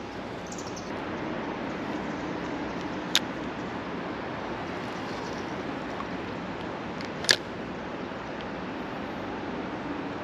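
Steady rush of running creek water, with two sharp clicks about four seconds apart.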